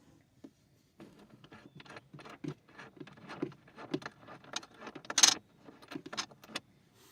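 Small metal parts being handled while wiring battery terminals: a run of light clicks, rattles and scrapes from cable connectors and a screwdriver, with one louder sharp clack about five seconds in.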